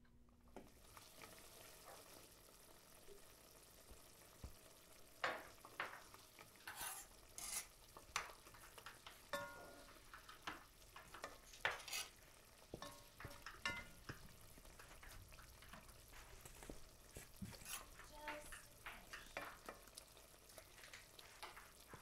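Cooking at a stovetop: a faint steady sizzle of food frying, with scattered short clinks and scrapes of utensils against pots and pans.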